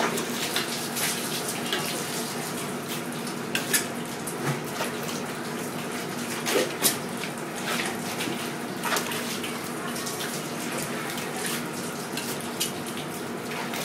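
Steady splash of running tap water, with scattered clicks and taps of a filleting knife on a plastic cutting board, the sharpest a little before the middle. A faint steady hum sits underneath.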